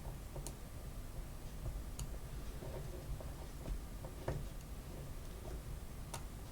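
A few faint, sharp clicks of small N gauge locomotive chassis parts, axles and bearings, being handled and fitted with tweezers. The clicks come a second or two apart.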